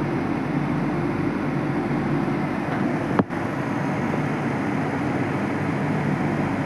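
Steam boiler and turbine plant machinery running: a steady noise with a constant low hum. A single sharp click about three seconds in.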